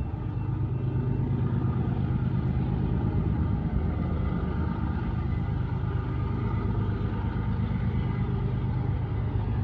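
Diesel locomotives of an approaching CSX double-stack freight train, working hard at a high throttle notch: a steady low rumble.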